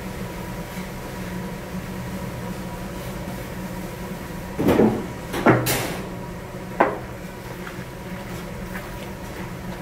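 Wooden spatula knocking and scraping against a large stainless steel wok, three sharp strikes close together around the middle, over a steady low kitchen hum.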